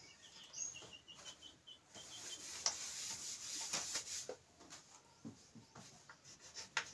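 Chalkboard being wiped with a duster: a rubbing sweep of about two seconds in the middle. It is followed by a few light chalk taps as writing starts again. At the start there is a quick run of short high squeaks.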